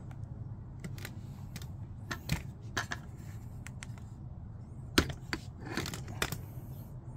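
Scattered light clicks and taps from a rifle with an EOTech EXPS holographic sight being handled and turned in the hand, the sharpest knock about five seconds in, over a steady low hum.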